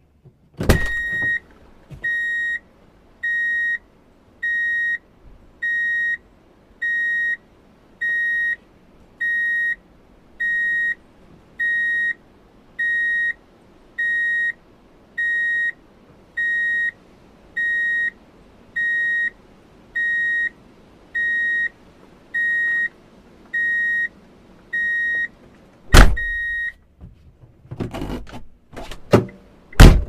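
A car's reverse-gear warning beeper sounds a steady, evenly spaced series of high single-pitch beeps, about one every 1.2 seconds, a sign that the car is in reverse. A loud thunk comes just before the beeping starts and another as it stops, followed by a few clunks and a sharp click near the end.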